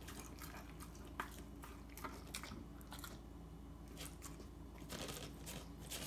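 Belgian Malinois licking a paper plate clean and chewing the last scraps of chicken, with irregular wet smacking sounds.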